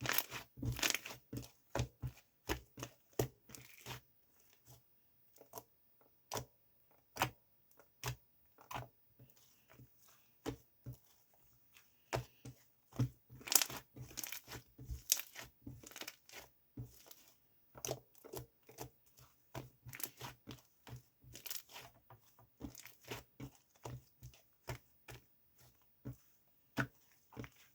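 Slime being squeezed, stretched and pressed by hand, giving a dense, irregular run of sticky pops and clicks, sparser for a while in the middle.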